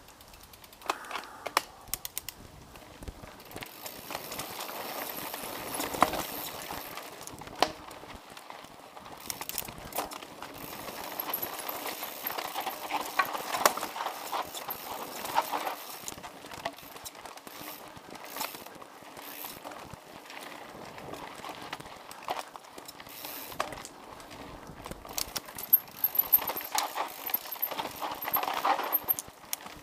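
Mountain bike ridden over a rough dirt forest trail: tyres rolling and crunching on dirt, with frequent sharp rattles and knocks from the bike and the handlebar-mounted camera as it runs over bumps and roots.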